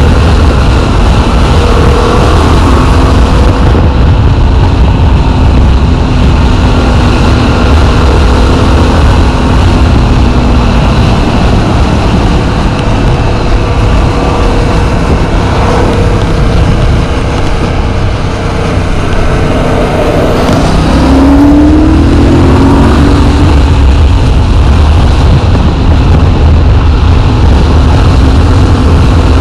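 Yamaha MT-07's parallel-twin engine running while the bike is ridden, with heavy wind noise on the microphone. About two-thirds of the way through, the sound dips briefly, then the engine note climbs as the bike accelerates again.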